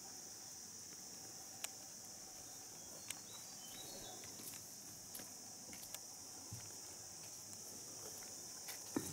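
Quiet outdoor ambience: a steady high insect drone, with a few faint clicks and shuffling steps and a sharper knock near the end.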